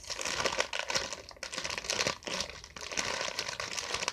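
Plastic packaging of a squishy toy crinkling as it is handled, a dense run of irregular crackles.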